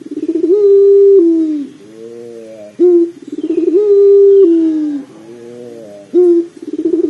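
Puter pelung, a ringneck dove bred for a long coo, cooing in repeated phrases about every three seconds: each opens with a short note, runs into a quick trill that rises into a long held note, then falls away. Softer, lower notes fill the gaps, and a third phrase begins near the end.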